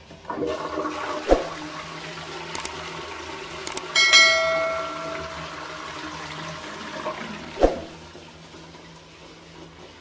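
Low-level toilet cistern with newly replaced flush parts being flushed: a click as it is set off, a rush of water lasting about seven seconds with a ringing clink near the middle, and a knock near the end as the flush stops.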